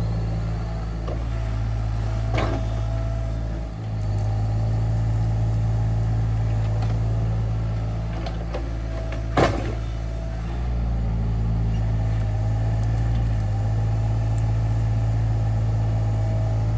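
SANY SY35U mini excavator's diesel engine running steadily with a hydraulic whine that comes and goes as the bucket digs and scrapes dirt. Two sharp knocks cut through, one about two seconds in and a louder one about nine seconds in.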